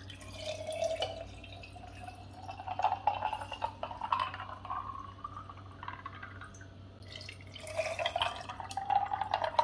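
Iced tea poured from a pitcher over ice cubes into a glass mason-jar mug, the filling note rising steadily in pitch as the glass fills. After a short break, about seven and a half seconds in, a second glass starts filling, its note rising again.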